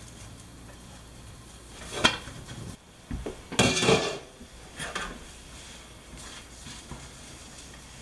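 Cookware clattering on a stovetop: a sharp knock about two seconds in, a louder rattle of pan and utensil a little later, and a smaller clank about a second after that.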